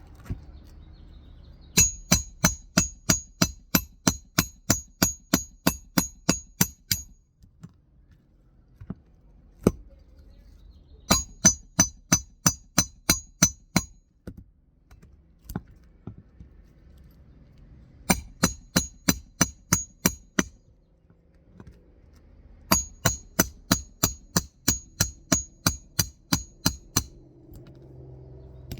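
Hammer driving roofing nails into a shingle, struck in quick runs of about four blows a second with a bright metallic ring on each blow. Four runs of blows, with short pauses between them.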